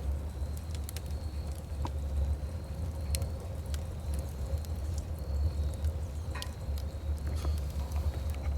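Wood fire burning in a 55-gallon barrel rocket stove: scattered sharp crackles and pops over a steady low rumble.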